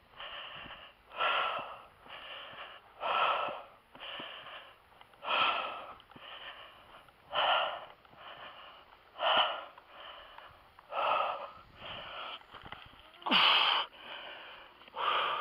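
A man breathing hard and wheezing, out of breath from lifting and carrying a heavy bee hive: a loud breath about every two seconds with quieter ones between.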